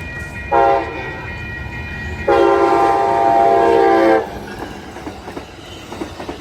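Siemens SC-44 Charger locomotive's horn sounding on a passing Amtrak train: a short blast about half a second in, then a long blast of about two seconds. After the horn stops, the train rumbles past with wheels clicking over the rail joints.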